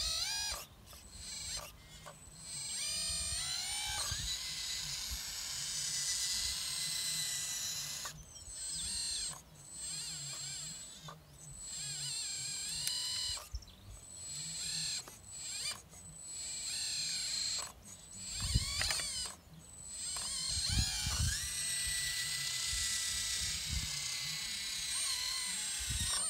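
Hydraulic RC excavator's pump and valves whining, cutting in and out repeatedly and sliding in pitch as the boom, arm and bucket move. A few low thuds come about two-thirds of the way through.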